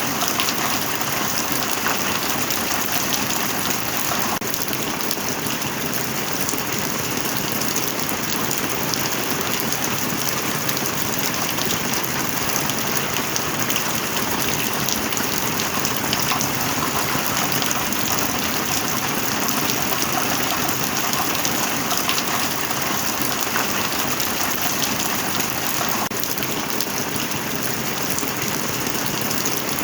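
Rain falling steadily: a dense, even hiss with fine drop ticks throughout.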